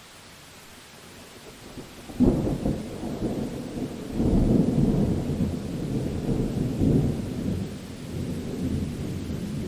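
Thunderstorm: steady rain hiss, then a sharp thunderclap about two seconds in, followed by long, rolling rumbles of thunder over the rain.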